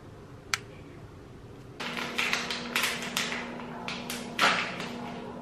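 A single sharp click, then a steady low hum starts about two seconds in, under a run of irregular taps, clatters and rustles; the loudest clatter comes about four and a half seconds in.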